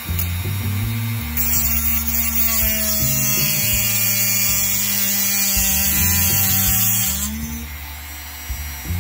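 A Dremel rotary tool with an abrasive cutoff wheel whines at steady speed while it cuts through a model railroad rail. Loud grinding hiss from the wheel biting the metal runs from about a second and a half in to about seven seconds, then eases off.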